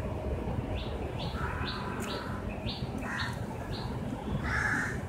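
Birds calling: a string of short, high chirps about every half second, with a few harsher, lower calls in the middle and near the end, over a steady low background rumble.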